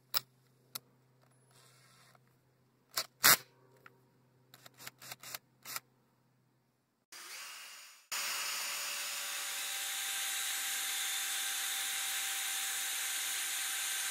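Sharp clicks of a cordless drill's keyless chuck being tightened by hand on a steel rod. About eight seconds in, the drill starts and runs steadily, a loud even whir with a faint whine.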